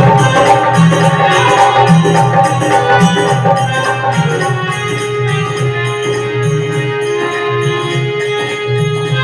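Instrumental music accompanying a Hindi bhajan: long held keyboard notes over a steady drum and tambourine beat.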